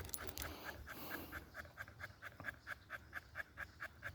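A dog panting quickly and steadily, about four breaths a second, while hot after a long walk in 90-degree heat.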